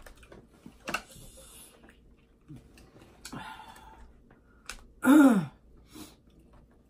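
Eating at the table: soft clicks and rustles as crab legs and food from the seafood boil are handled and picked at. The loudest moment, about five seconds in, is a short vocal sound that falls in pitch.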